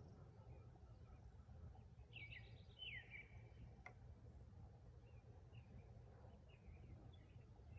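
Near silence: a faint low outdoor rumble. A small bird chirps a quick run of gliding calls about two to three seconds in, with fainter chirps later. There is one faint click near four seconds in.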